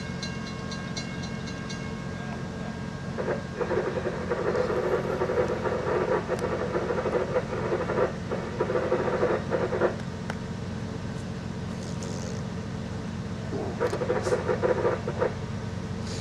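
An approaching diesel train rumbles steadily, and its horn sounds in two long blasts, from about three to ten seconds in with a short break near eight seconds, then a shorter blast near the end.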